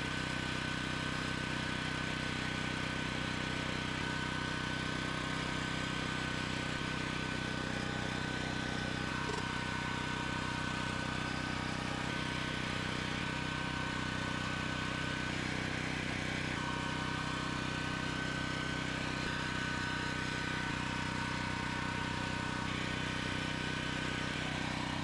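Newly installed Generac home standby generator running steadily, an even engine drone with a thin high whine over it.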